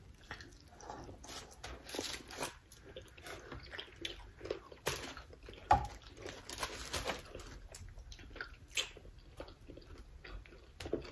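People eating fried chicken wings: chewing and mouth smacks with scattered crisp bites and small clicks.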